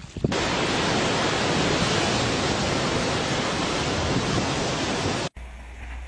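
A steady, even, loud rushing noise that starts abruptly just after the start and cuts off suddenly about five seconds in.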